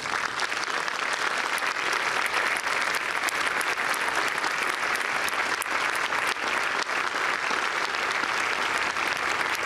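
A crowd applauding steadily, many hands clapping together. It breaks out suddenly at the start.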